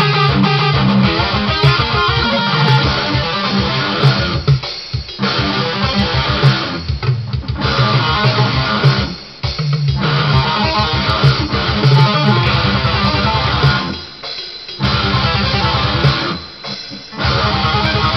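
Electric guitar playing a fast metal riff with rapid picked notes, broken by several short pauses.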